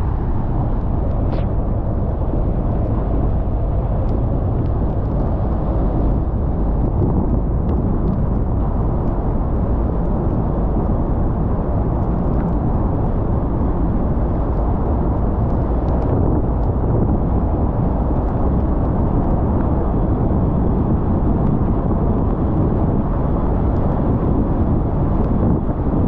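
Steady low rumble of a moving car: road and engine noise with no distinct events.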